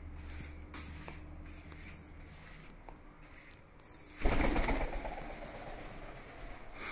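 African grey parrot taking off from its perch and flying, a sudden rush of wingbeats about four seconds in that fades over the next two seconds. Before that, only faint room noise.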